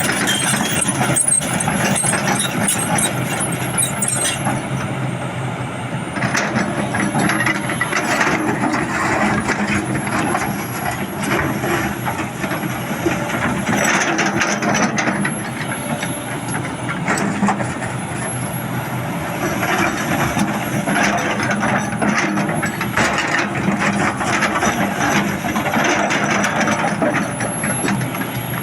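Excavator at work: its engine running steadily under a thin high whine that dips and comes back every few seconds, with repeated mechanical clattering.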